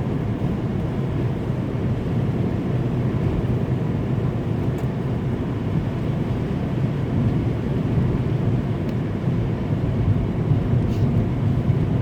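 Steady road noise inside a moving van's cabin at highway speed: a low, even rumble of engine and tyres.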